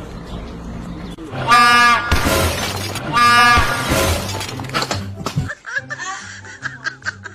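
Two loud blasts of a prank train horn, the first short and the second about a second long. Background music with a steady bass beat starts near the end.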